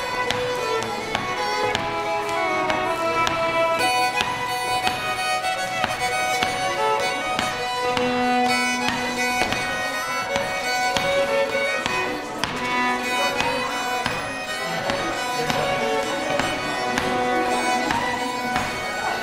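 A fiddle playing a telespringar, a Norwegian springar dance tune in three-beat time. A steady melody runs throughout, with held notes sounding alongside it like a drone.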